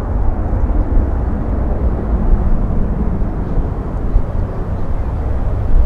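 Boeing 737-800's twin CFM56-7B turbofan engines at climb thrust as the airliner climbs away after takeoff: a steady, deep rumble with no breaks.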